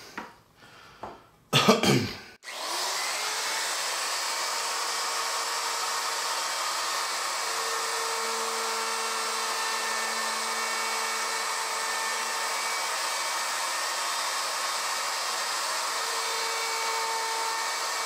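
Ryobi router with a small straight bit running steadily as it cuts into the wood around the sign's letters, a constant whirring motor noise. It is preceded by a few brief, louder sounds in the first two seconds.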